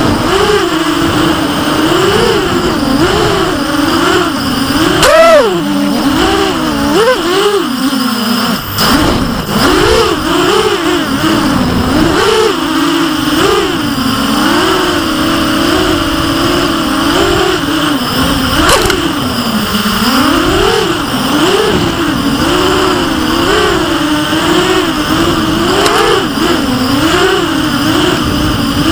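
FPV racing quadcopter's electric motors and propellers buzzing in flight, the pitch rising and falling constantly as the throttle is worked. The pitch climbs sharply about five seconds in, then drops briefly around eight seconds as the throttle is cut, before the buzz picks up again.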